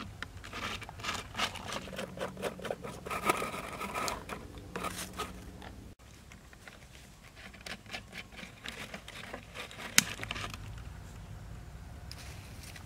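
Hands handling plastic soda bottles: a run of small clicks, scrapes and crinkles of thin plastic, with one sharp click near the end.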